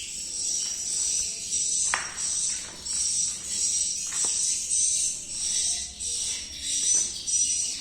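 Swiftlet calls: high, rapid chirping trills pulsing about twice a second, with a thin steady whistle-like tone running under them.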